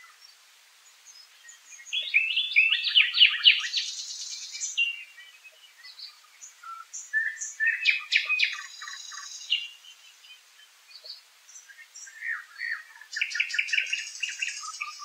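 Songbirds singing: three loud phrases of quick repeated notes, about two, eight and thirteen seconds in, each ending in a higher buzzy flourish, with scattered short chirps between them.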